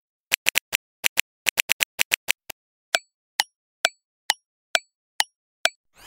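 Editing sound effects: a quick, irregular run of about fourteen clicks like keyboard typing for the first two seconds or so, then seven evenly spaced ticks a little over two a second, like a clock ticking.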